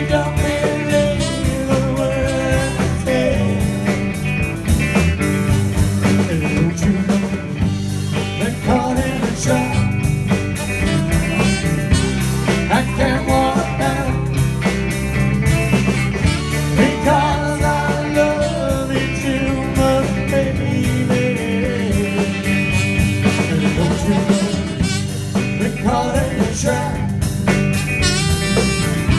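Live blues-rock band playing: a tenor saxophone over electric guitar, electric bass and a drum kit with a steady beat, with a male voice singing.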